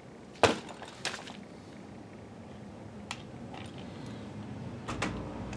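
A sharp click about half a second in, then a second click and a few faint knocks, from the plastic and metal parts of an opened projector being handled during reassembly. Near the end a low steady hum starts, from an electric screwdriver.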